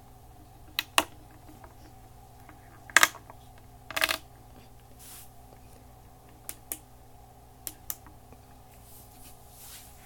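Scattered sharp clicks and taps as a small LED flashlight and its gooseneck mini tripod are handled and adjusted. The loudest come about three and four seconds in, over a faint steady hum.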